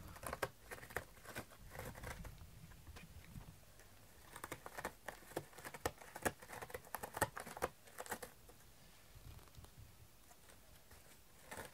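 Cat scratching a corrugated cardboard scratcher with its front claws: quick rasping strokes in two main runs, with a lull in between and again near the end.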